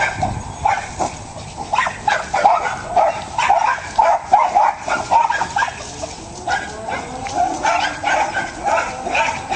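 Cairn terrier barking in short, high yaps, two or three a second, over and over.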